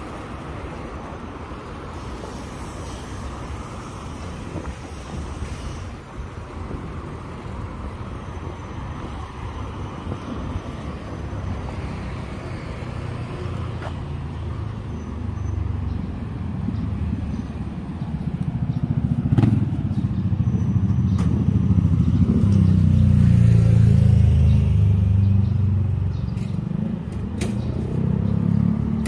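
Outdoor street ambience with a low rumble that builds from about halfway through and is loudest about two-thirds of the way in, with a few sharp clicks.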